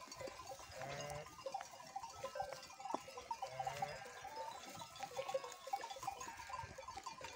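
Several faint bleats from a grazing flock of sheep with a few goats, scattered through, over small ticks and rustles in the grass.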